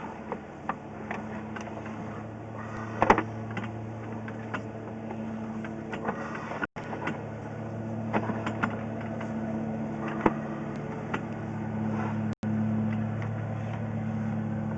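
A steady low mechanical hum, like an engine running, with scattered clicks and knocks; the loudest knocks come in a short cluster about three seconds in.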